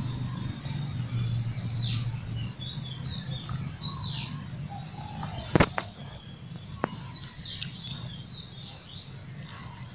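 Wild birds calling: short, high downward-sliding chirps every couple of seconds, over a steady high-pitched insect drone. A single sharp tap about five and a half seconds in is the loudest sound.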